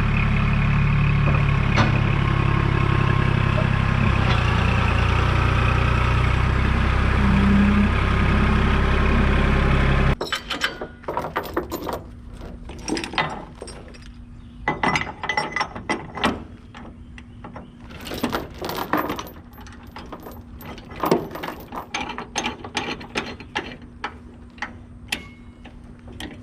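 Kubota backhoe's diesel engine running steadily, then cut off abruptly about ten seconds in. Irregular clicks and knocks follow.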